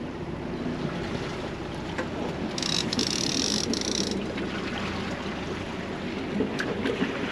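Wind and sea water washing along a sailing yacht on the open ocean, a steady noisy wash, with a brief high hiss about two and a half seconds in that lasts about a second and a half.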